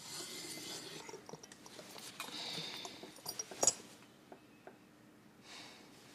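Faint handling noises of small objects on a desk: light clicks, taps and rustles, with one sharper click a little past the middle.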